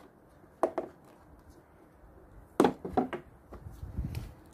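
Knocks and clatter of parts being handled as a lawnmower's air filter is fitted back into its housing. There is a single knock, then a quick run of three or four sharper knocks about halfway through, then softer low thuds near the end.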